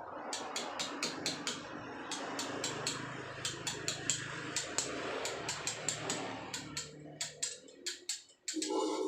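Rapid hand hammer blows on a steel chisel carving soft paras jogja limestone, about four or five sharp taps a second. A continuous rough noise runs under the first seven seconds, then fades out.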